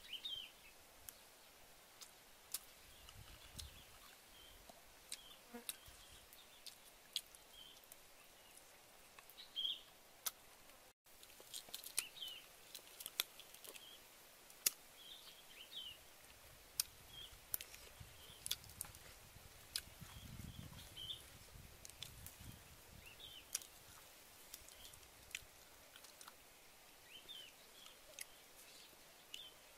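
Faint sharp clicks and small crackles of shell being picked off a boiled fertilized duck egg, along with chewing. Short high chirps repeat in the background every second or two.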